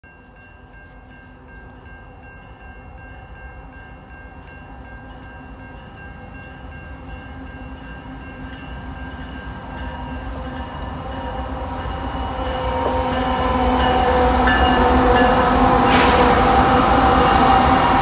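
CN diesel freight locomotive approaching a level crossing, growing steadily louder for about fourteen seconds until it is close and loud. A crossing warning bell rings throughout, and the locomotive's horn sounds as it nears.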